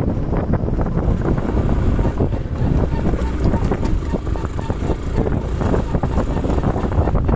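Wind buffeting the microphone over a vehicle's engine and tyres running on a rough dirt and gravel track, with frequent small knocks and rattles from the bumpy surface.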